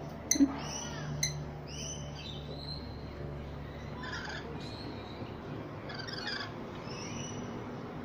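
Rainbow lorikeets giving short, high chirps and chattering calls at intervals, with a couple of sharp clicks near the start.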